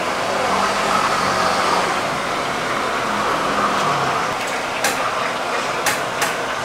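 Steady street traffic noise with a motor vehicle passing, its engine note fading after about four seconds. A few sharp taps come near the end.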